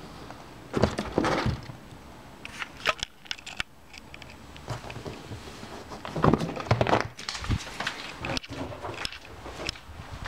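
Irregular rustling, scraping and knocks from a hand and a handheld camera brushing against a fabric armchair, with heavier bursts about a second in and again around six to seven seconds in.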